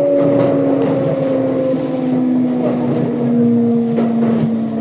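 Kintetsu 1259 series train's Hitachi GTO-VVVF inverter and traction motors whining in several tones that slowly fall in pitch as the train slows on its approach to a station, over steady rolling noise from the wheels on the rails.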